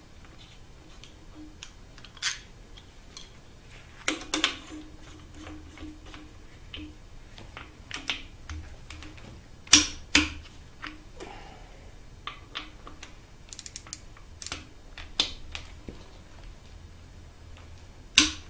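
Scattered metallic clicks and ticks of a wrench and socket working on a Subaru EJ257 engine block as the wrist pin access plugs are threaded in and torqued, with a cluster of clicks about four seconds in and two sharp, louder clicks around the middle.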